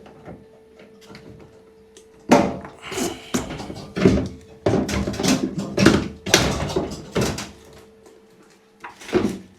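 A washing machine's cabinet and removed parts being handled during disassembly: a quick run of loud clunks and knocks starting about two seconds in, then one more near the end.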